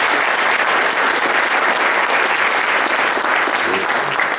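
Banquet audience applauding steadily.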